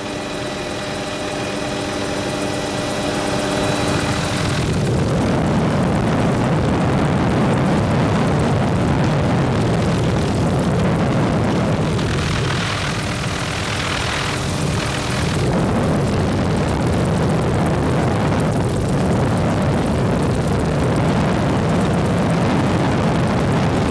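Helicopter in flight heard from inside the cabin: the engine and rotors running as a loud, steady noise. A steady whine of several tones comes in near the start and again about halfway.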